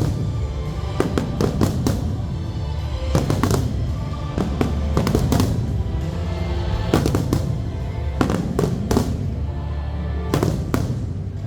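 Aerial fireworks bursting in clusters of sharp bangs every second or two, over loud music played for the show.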